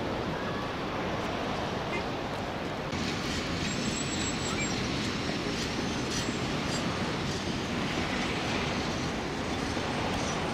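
Steady outdoor background noise, a dense rushing hiss that grows brighter about three seconds in.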